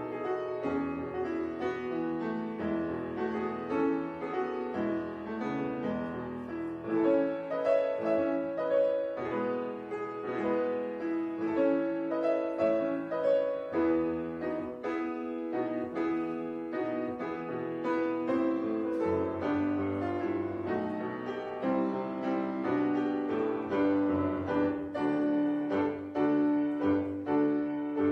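Grand piano playing an unbroken run of notes, with some long held notes ringing under the melody.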